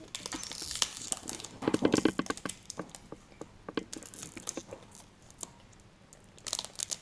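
Foil trading-card packets being torn open and crinkled: runs of sharp crackling tears, loudest about two seconds in, with another short crackle near the end.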